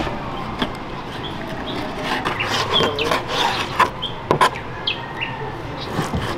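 Kitchen knife knocking on a plastic cutting board as raw chicken breast is sliced, a few sharp taps, the clearest at the start and around four seconds in. Birds chirp in the background, several short high chirps.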